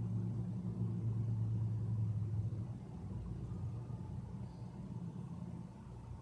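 Low rumble of a motor vehicle's engine, strongest for the first two and a half seconds and then fading away.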